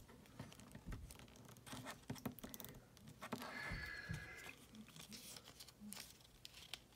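Faint clicks and rubbing as fingers pose a plastic Star Wars Black Series Obi-Wan Kenobi action figure, working its joints. A faint high squeak lasts about a second midway.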